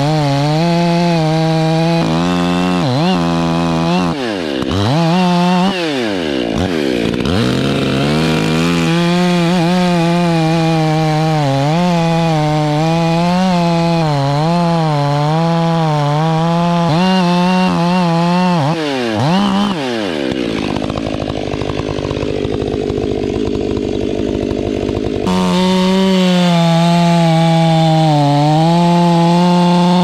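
Stihl two-stroke chainsaw cutting into a large tree trunk at full throttle, its pitch wavering as the chain loads up in the wood and recovers. In the first several seconds the revs swoop down and back up a few times. From about two-thirds of the way in, the saw runs slower and rougher for several seconds, then it is back at full revs near the end.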